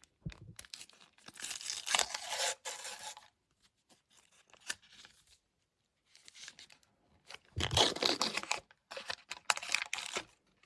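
A trading card pack's wrapper being torn open and crinkled by hand, in two spells of tearing and rustling, the first just after the start and the second near the end.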